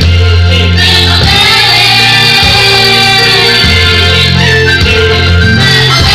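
A small group of singers, a man and several women, singing a gospel song through microphones over amplified music with deep, sustained bass notes that change every second or so.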